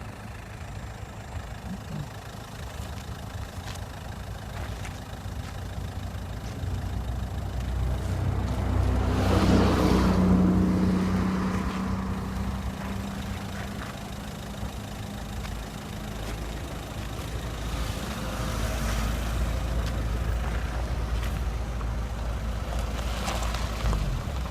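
Road traffic: a steady low engine rumble, with a vehicle passing that is loudest about ten seconds in, and another building up over the last several seconds.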